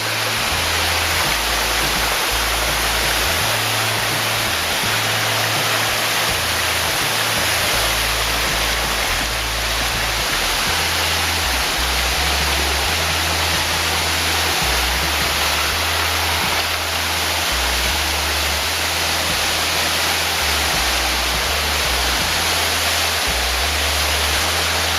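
A waterfall rushing steadily, with background music whose bass line steps through low notes underneath.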